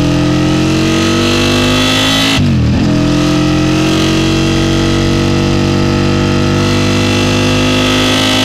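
Aprilia sport bike's engine at full throttle, heard from onboard. The revs climb, drop sharply in a quick upshift about two and a half seconds in, then climb steadily again as the bike keeps accelerating.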